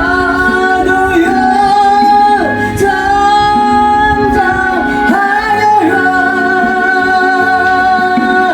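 A solo voice sings a Korean gospel praise song in long held notes, each lasting a second or two, over a sustained instrumental accompaniment.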